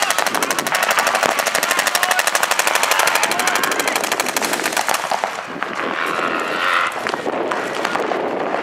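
Paintball markers firing in rapid streams, many shots a second, which thin out to scattered shots about five seconds in.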